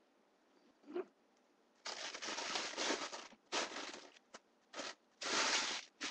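A bag crinkling and rustling as it is handled, in several bursts with short gaps from about two seconds in. A brief squeak comes about a second in.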